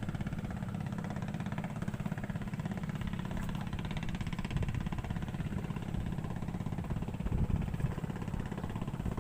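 A motor running steadily with a low rumble.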